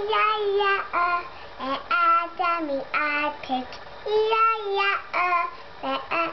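A young boy singing: a run of short sung notes, with two longer held notes, one at the start and one about four seconds in.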